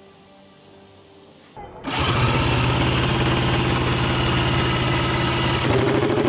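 Junior dragster's single-cylinder engine starting about a second and a half in, catching almost at once and then running loud and steady at idle.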